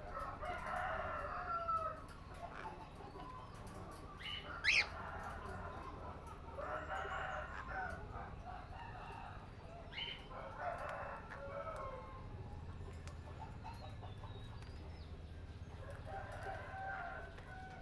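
Birds calling: four long calls of about a second and a half each, spaced several seconds apart, with one short, sharp rising whistle about five seconds in.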